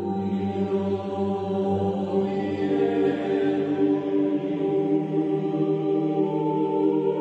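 Slow, meditative background music of long held chant-like voices over a low drone.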